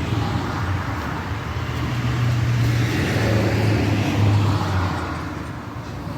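Low, steady rumble of a motor vehicle that swells two to four seconds in and eases off near the end.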